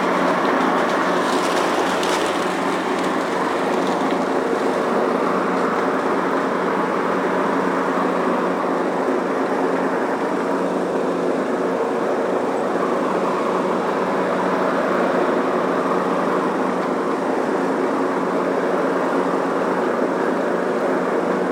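Lawn tractor engine running steadily while mowing with the blades engaged and the grass bagger collecting clippings, an even hum with no change in speed.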